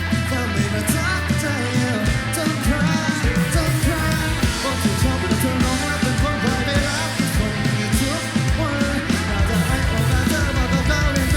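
Live rock band playing: drums, bass and electric guitar with a sung vocal line, at a steady loud level.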